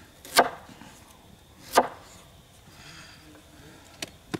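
A knife chops through raw potatoes against a wooden tabletop: two sharp chops about a second and a half apart, then two lighter knocks near the end.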